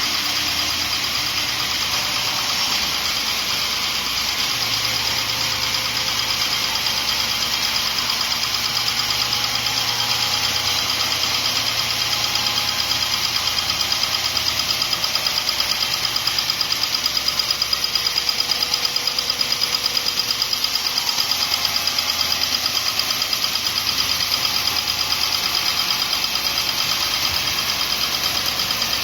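Horizontal band sawmill running steadily, a continuous machine noise with a strong hiss high up.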